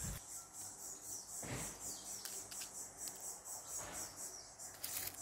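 Insects chirping in a steady, high, pulsing drone, with a few soft rustles over dry leaf litter.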